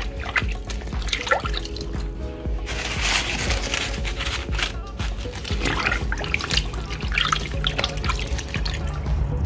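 Water sloshing and splashing in a sink as dried corn husks are pushed down by hand under warm water to soak, over background music.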